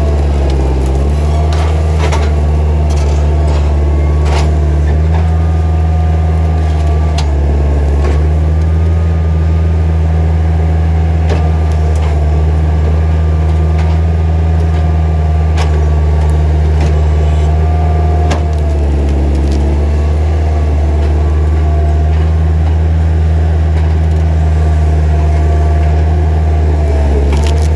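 Skid steer engine running steadily: a loud low drone with a fainter whine on top that wavers slightly in pitch, and scattered clicks and knocks.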